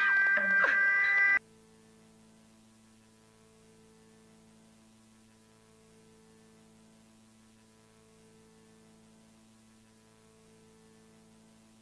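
A loud, distorted tone with several pitches, some sliding, cuts off abruptly about a second and a half in. A faint, steady electrical hum remains.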